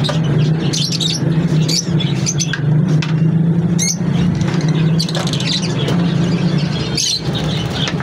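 A flock of caged lovebirds chirping and squeaking in many short, sharp, irregular calls over a steady low hum.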